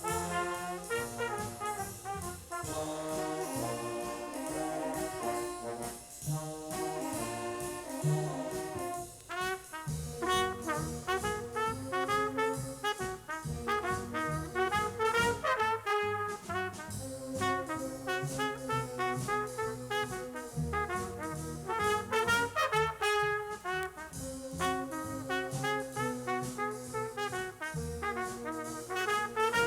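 A junior high school stage band playing big-band jazz from a 1969 LP recording, with the trumpet and trombone sections playing ensemble lines.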